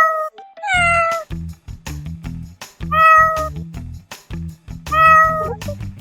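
A cat meowing over and over, the same short meow about once every two seconds, over background music with a steady beat.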